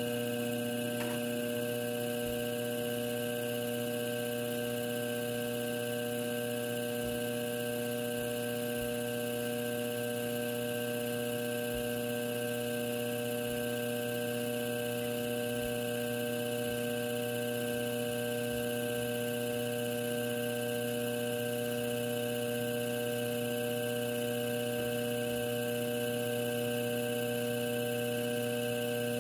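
Electric pottery wheel's motor running at a constant speed with a steady hum.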